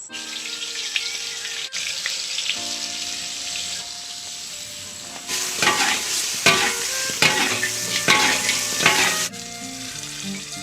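Food frying and sizzling in a hot pan, a steady hiss that turns louder and more uneven for about four seconds from the middle on, as if it is being stirred or tossed.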